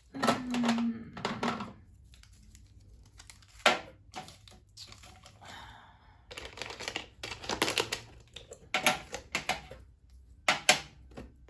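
Small hard craft tools clicking and clattering as they are handled and set into a toolbox, in several short bursts, with one sharp knock about four seconds in.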